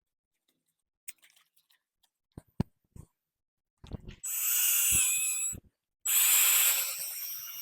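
A drill spinning a sanding pad, wet-sanding a headlight lens with 1500-grit, run in two bursts of a few seconds each with a whining motor, after some clicks and knocks of handling.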